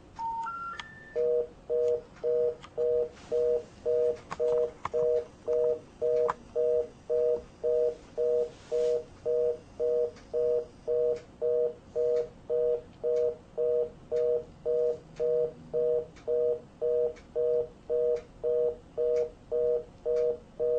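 Telephone exchange signalling on the line: three short rising special-information tones, then a fast busy (reorder) tone of evenly pulsed two-note beeps at about two per second. This signals that the call cannot be completed, after the not-in-service intercept.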